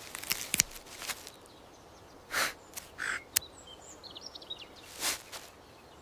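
Outdoor forest ambience: a few short soft swishes and sharp clicks, with faint high bird chirps about four seconds in.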